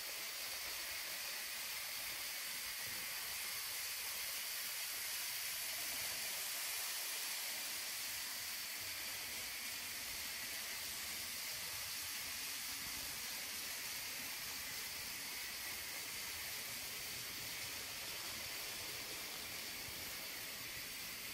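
A steady, even hiss with no distinct events: room tone and recording hiss, with no clear train sound standing out.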